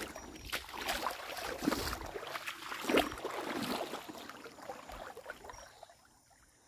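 Footsteps wading across a shallow river, water splashing and sloshing irregularly with each step, dying away near the end.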